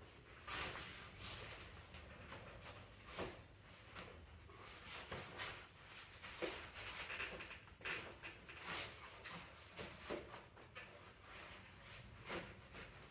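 Faint, scattered clicks and light knocks of tools and parts being handled, with no engine running.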